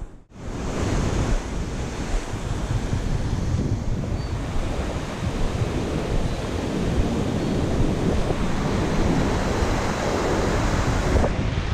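Ocean surf breaking and washing up the beach, with wind buffeting the microphone. There is a brief drop-out at the very start.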